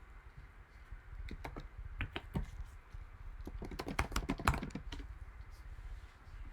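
Typing on a computer keyboard: a few scattered keystrokes, then a quick run of keystrokes a little past the middle.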